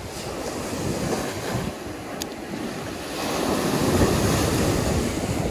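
Ocean surf breaking and washing up a sandy beach, with wind buffeting the microphone; a wave breaks and the wash grows louder about three seconds in.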